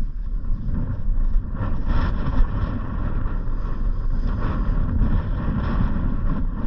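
Vehicle driving along: a steady low rumble of engine and road noise with some wind.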